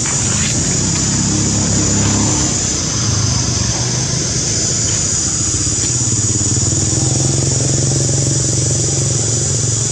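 A motor engine running steadily, its low hum shifting to a lower, steady pitch about three seconds in, under a constant high-pitched drone.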